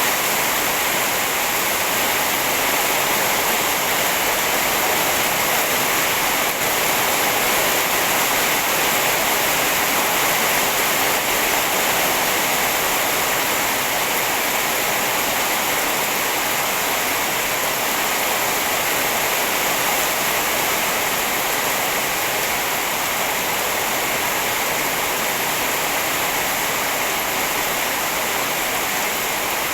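Heavy rain falling steadily, an unbroken, even hiss with no distinct drops or thunder.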